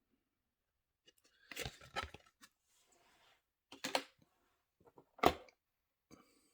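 Model packaging being handled and pulled apart, rustling and crackling in three bursts, the sharpest a little past five seconds in.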